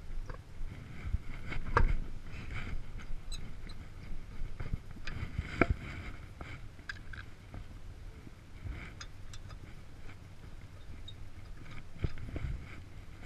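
Wheel and tool handling during a tire change: scattered knocks and small metal clicks, with two sharper clanks about two and six seconds in, over a steady low rumble.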